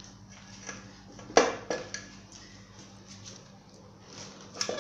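A few sharp metallic clinks and knocks as a Royal Enfield UCE engine's crankcase half is handled and seated, the loudest about a second and a half in and another near the end. A steady low hum runs underneath.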